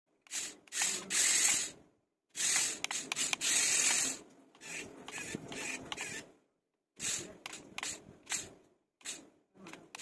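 Electric drive motors and gears of an S012 RC stunt car whirring as it drives and spins on a tiled floor, in a run of bursts of one to two seconds with short gaps between them.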